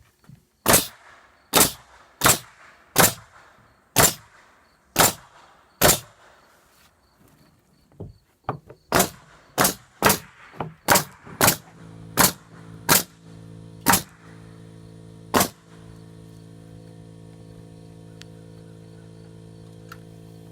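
Hammer driving nails into wooden boards: two runs of sharp, evenly spaced blows, about one a second. A steady low hum comes in under the later blows.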